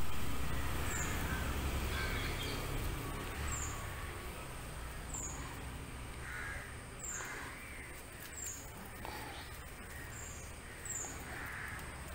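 Crows cawing now and then in the background, with a short high chirp repeating about every second and a half. A low rumble is loudest at the start and fades over the first couple of seconds.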